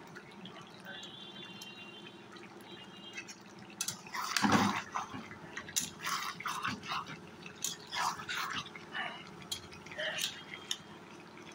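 Thick beef curry simmering in the pan, with irregular short wet pops and plops over a low steady hum.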